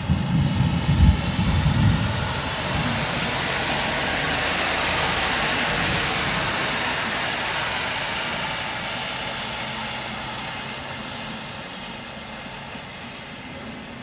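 Thunder rumbling, loudest in the first two seconds. A long rushing hiss follows, swelling for a few seconds and then slowly fading.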